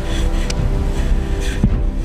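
Background music with held tones over a heavy bass.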